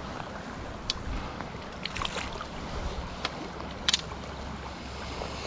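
Shallow river water running over rocks, with a few short sharp clicks and knocks over it.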